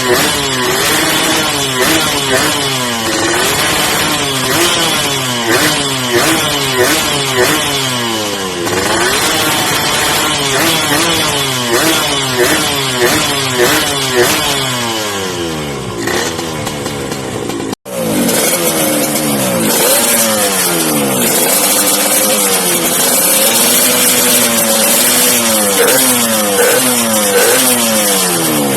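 Two-stroke motorcycle engine being revved in repeated blips, its pitch rising and falling about once a second. After a brief cut-out about 18 seconds in, it runs on at higher revs with slower swells in pitch.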